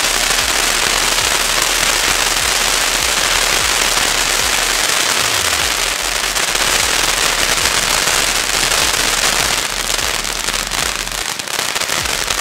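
Funke Silbercracker fountains burning: a loud, dense crackling over a hiss of sparks, thinning into separate cracks near the end.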